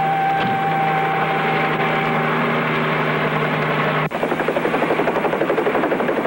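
Bell 47 helicopter in flight, its rotor beating fast and evenly over the piston engine. For the first four seconds a held musical chord from the dramatic score lies over it, then a sudden cut to the cabin sound.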